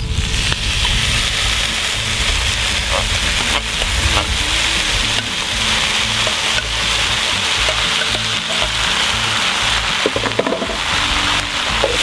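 Diced tomatoes and their juice hitting a hot cast-iron Dutch oven, setting off a steady sizzle that starts suddenly and holds, with a few light clicks along the way.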